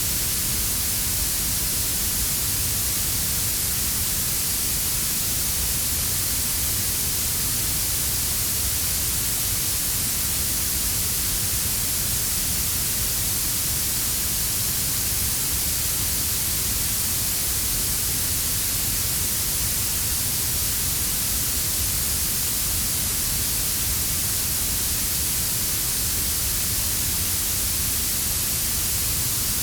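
Synthetic blue noise: a steady, bright hiss heaviest in the highest frequencies, over a quieter low brown-noise rumble mixed about 6 dB down.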